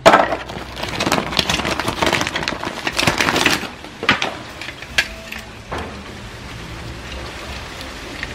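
Plastic toys and their plastic wrapping rustling and clattering in a plastic basin as hands rummage through them, dense for the first few seconds, then a few separate sharp clicks.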